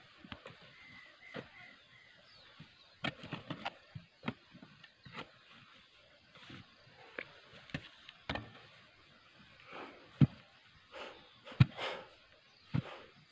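Digging tool striking and scraping into packed clay soil at the bottom of a deep hole: irregular dull knocks and short scrapes, about one every second, some louder than others.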